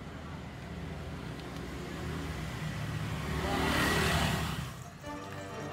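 A vehicle passes close by in the street, swelling to its loudest about four seconds in and then fading, over a low steady rumble.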